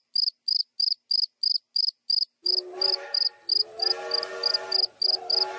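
A cricket chirping steadily, short high chirps about three times a second. About two and a half seconds in, soft held music chords come in under the chirping.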